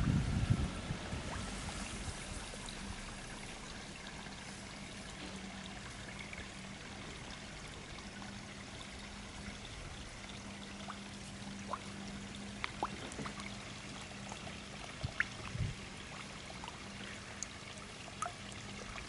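Steady trickle of running water in a koi pond, with a steady low hum and scattered small clicks and splashes in the second half. A brief low rumble at the very start.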